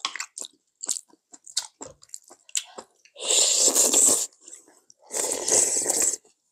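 Two long slurps of soup from spoons, each about a second, in the middle and near the end, among short clicks and chewing sounds from eating at the table.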